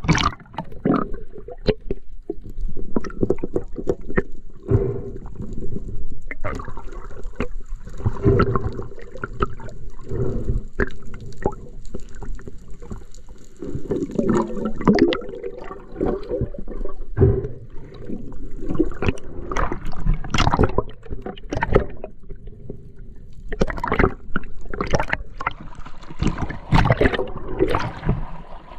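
Water sloshing, gurgling and splashing from a snorkeler swimming at the surface, heard through a waterproof action-camera housing that dips in and out of the water. The splashing gets busier near the end.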